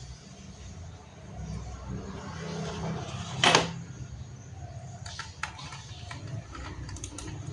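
Small screws and a screwdriver handled while fastening a 2.5-inch SSD into the laptop's drive caddy: one sharp, loud clack about halfway through, then several light clicks near the end, over a low steady rumble.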